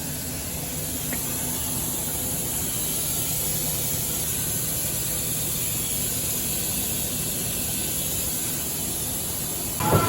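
Steady hiss from an OKK MDV55 CNC vertical machining center standing powered up, its compressed air hissing. A brief louder noise sets in right at the end.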